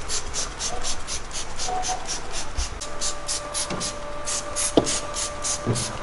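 Small hand trigger spray bottle squirting warm water onto thick freezer frost: a short hiss with each squeeze, about three squeezes a second.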